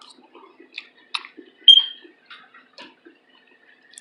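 Close-up eating sounds: scattered small clicks and smacks, the loudest about a second and a half in with a brief squeak.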